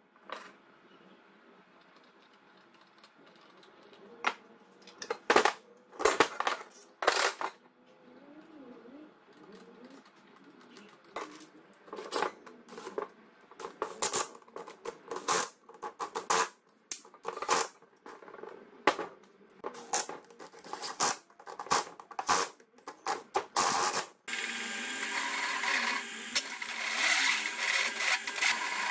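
Metal parts and bolts clinking and clanking as they are handled on a workbench, with short runs of a cordless drill/driver driving bolts into a sprocket hub. About 24 seconds in, this gives way suddenly to a drill press running steadily as a step drill bit cuts through square metal tubing.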